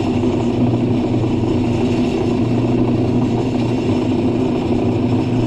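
Bench grinder running steadily, its motor giving a constant hum.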